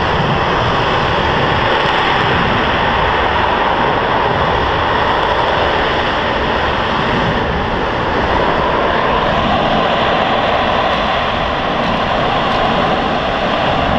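Escaping natural gas burning as a tall jet of flame: a loud, steady rushing noise that does not let up.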